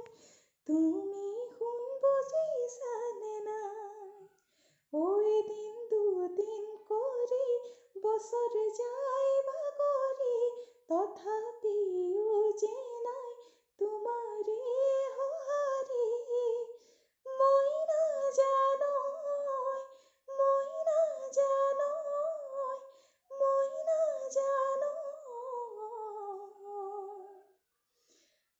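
A woman singing an Assamese song solo and unaccompanied, in phrases of two to three seconds with short breaks between them.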